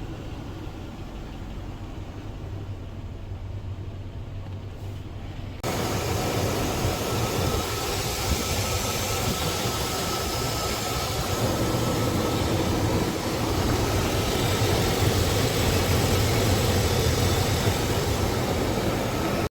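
Car engine idling with the rough idle the vehicle has developed. About six seconds in the sound jumps suddenly louder and fuller and stays so.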